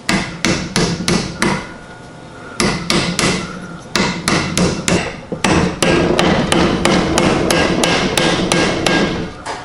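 A hammer striking repeatedly to drive a hand-forged hatchet head down onto its hardwood handle: a steady run of sharp blows about three a second, each with a faint metallic ring. After the first six or so blows comes a pause of about a second, then the blows resume and carry on.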